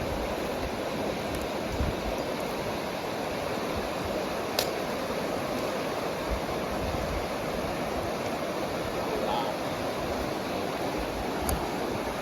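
Steady rush of flowing creek or river water, with two short sharp clicks, one about four and a half seconds in and one near the end.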